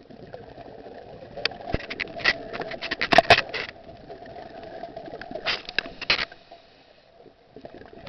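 Scuba diver breathing through a regulator underwater: two bursts of exhaled bubbles rushing and crackling past the microphone, the first from about a second and a half in to nearly four seconds, the second shorter, around five and a half to six seconds in.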